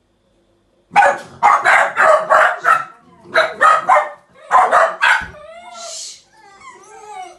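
Several dachshunds barking in quick strings, about a dozen sharp barks in three bursts starting about a second in, then high, wavering whining and whimpering. The dogs are alerted and excited by the owner's car arriving home.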